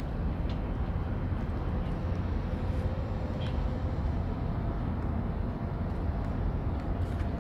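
Steady low rumble of open-air harbour ambience, with a faint steady hum on top.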